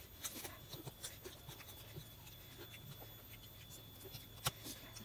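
Faint clicks and scrapes of people eating noodles with chopsticks and forks, with one sharper click about four and a half seconds in.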